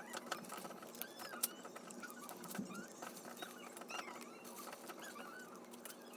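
Slime being squeezed and stretched by hand, giving many small sticky clicks, pops and squeaks.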